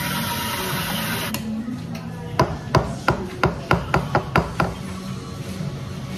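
Espresso-machine steam wand hissing as it steams almond milk, cutting off about a second in. Then a stainless steel milk pitcher is knocked sharply on the counter about nine times in quick succession, roughly four knocks a second, settling the foam in the freshly steamed milk.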